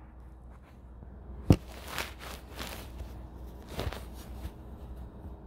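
Handling noise from a phone being set up to record: a sharp knock about a second and a half in, then softer knocks and rustling, over a low steady hum.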